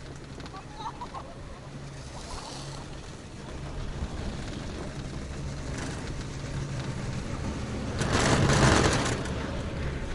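Riding a Taihei Sakudo detachable quad chairlift: a steady low hum of the moving lift with wind noise. A louder rushing rumble swells about eight seconds in and lasts about a second.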